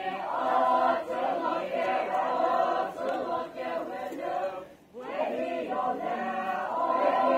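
A large group of voices singing a folk chant in unison, with a short break just before five seconds in before the next line begins.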